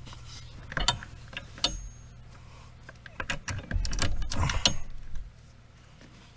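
Metal hand tools clinking: a 12 mm socket on an extension and a longer ratchet handle being fitted together and onto a tight nut, a few separate clicks and then a quick run of ratchet clicks and tool rattle about halfway through.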